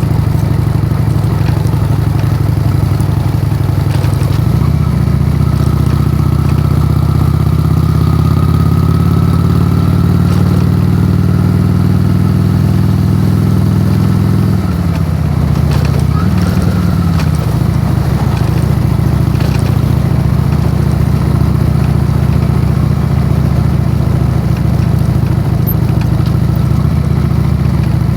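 Honda Shadow's V-twin engine running under way, picked up by a phone tied to the handlebars. The engine note steps up a few seconds in, holds, and drops back about halfway through, with a faint thin whine in the middle.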